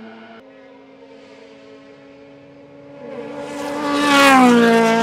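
Hill-climb race car holding steady high revs as it approaches, growing louder from about three seconds in, then passing close by near the end with its engine pitch dropping as it goes past.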